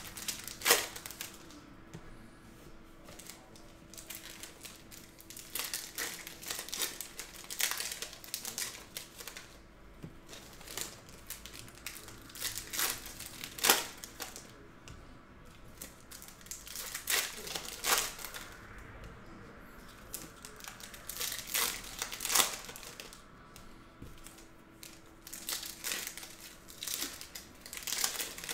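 Foil wrappers of Topps Chrome baseball card packs crinkling and tearing as the packs are opened by hand. The crackles come irregularly, with a few louder rips now and then.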